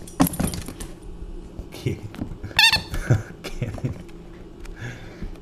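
The squeaker in a plush dog toy squeaking once, a single short squeak about halfway through, among light clicks and knocks on a hardwood floor.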